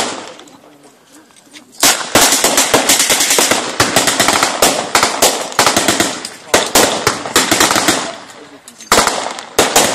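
Blank gunfire in a mock battle: a single shot, then from about two seconds in a sustained fusillade of rapid machine-gun and rifle fire, thinning out briefly and picking up again near the end.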